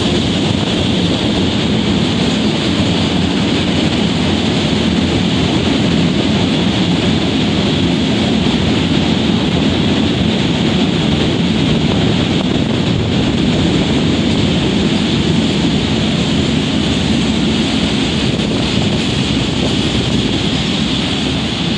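Train passing close by: a loud, steady rush and rumble of wheels on rails that holds at an even level.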